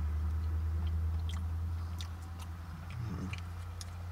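Close-up chewing of a soft pretzel coated in cheese sauce: scattered wet mouth clicks and smacks. A steady low hum runs underneath.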